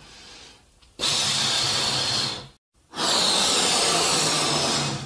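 Latex balloons being inflated by mouth: two long, hard, breathy blows, the first starting about a second in and the second following a short break.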